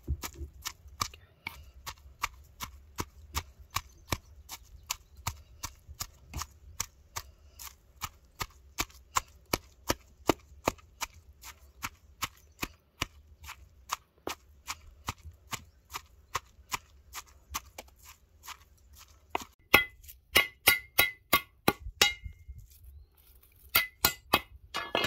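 A pestle pounding shallots, garlic and chili in a mortar for curry paste, a steady rhythm of dull strokes about two to three a second. From about twenty seconds in, a large knife chops lemongrass on a wooden board, louder and sharper strokes in two quick runs with a short pause between.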